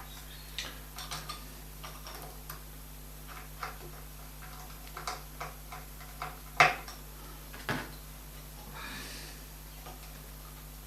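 Small metal clicks and taps as the needle plate of a vintage sewing machine is handled and lifted off, with one sharper click about two-thirds of the way through.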